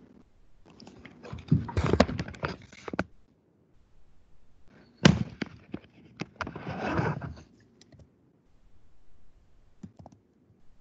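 A close burst of knocks and clicks with rustling, a single sharp knock, then a longer rustle and a few faint clicks near the end.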